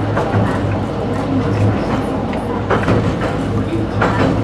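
Toyohashi Railroad T1000 'Hotram' low-floor tram running steadily along street track, heard from inside the car: a continuous rolling rumble with a low steady motor hum, and two short noises from the car about two-thirds of the way through and near the end.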